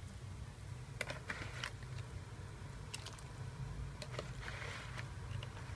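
Raw chicken pieces lowered with tongs into a steel pot of water: a few short wet splashes and clicks of the tongs against the pot, over a steady low hum.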